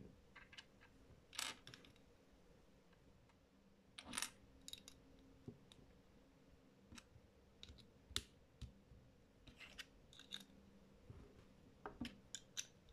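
Faint, scattered sharp clicks and taps of small plastic Lego pieces being handled, pressed together and set down on a tabletop, some coming in quick little clusters.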